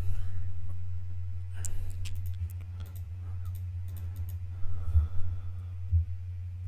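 A steady low electrical hum on the recording, with scattered faint computer mouse clicks and a couple of soft thumps.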